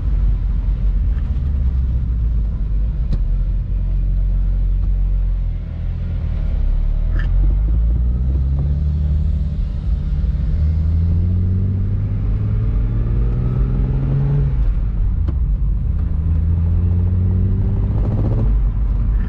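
BMW 135i's single-turbo N54 straight-six pulling under acceleration, heard from inside the cabin with the window down, over a steady low road rumble. The engine note rises for several seconds, drops at a gear change, then rises again near the end. Under acceleration like this the driver hears a noise from the rear that he says almost sounds like an axle.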